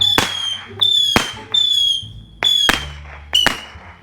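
Multi-shot whistling firework going off in quick succession: a series of short, high whistles, each with a sharp crack, about one to two a second.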